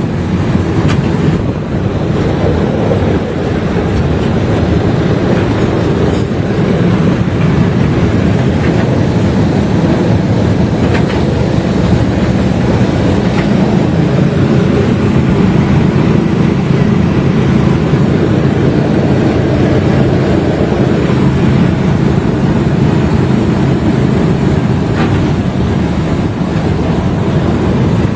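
Small park train running along its track, heard from on board: a steady low rumble of the moving train with a few faint clicks.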